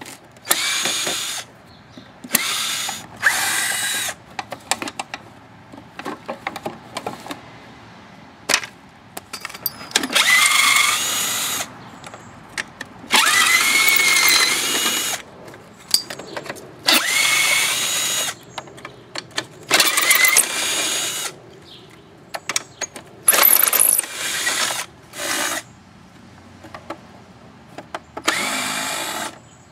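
Power drill running in about a dozen short bursts of one to two seconds, backing screws out of an electric snowblower's plastic housing; its whine rises as the motor spins up in each burst. Small clicks and rattles of parts come between bursts.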